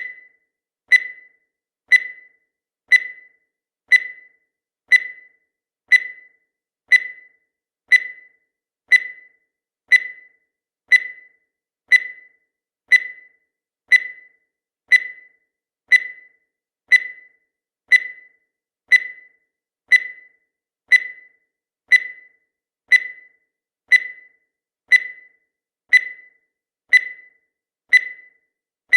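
Countdown timer sound effect: a short, high-pitched electronic beep once every second, each dying away quickly, in a steady unbroken rhythm.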